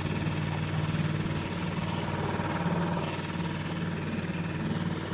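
Boat motor idling steadily, a low, even hum.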